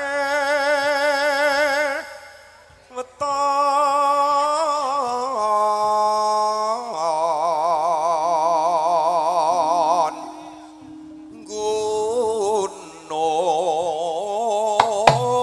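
A male singer's solo Javanese vocal line through a microphone, sung alone with no instruments under it. He holds long notes with wide vibrato and slides between pitches, pausing briefly twice.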